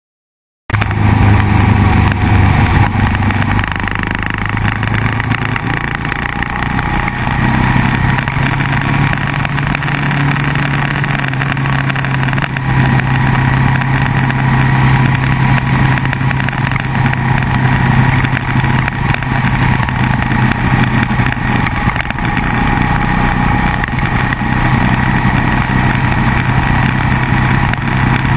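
Sport motorcycle's engine running at a steady cruise under heavy wind and road noise. It starts abruptly about a second in, and the engine note rises a few seconds later, then holds steady.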